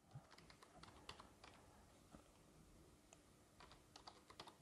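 Faint computer keyboard typing: scattered soft key clicks, coming closer together near the end.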